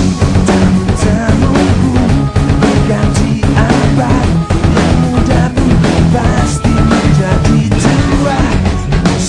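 Rock music with a drum kit and singing.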